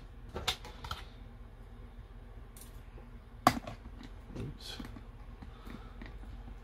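Small clicks and light taps of a precision screwdriver and plastic drone parts being handled, with one sharper click about three and a half seconds in.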